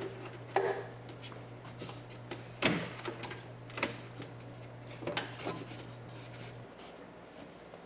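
Scattered light clicks and knocks of hands working inside a car door, pressing a foam block back into place and clipping its top in, the sharpest knock about three seconds in. A steady low hum runs underneath and drops out near the end.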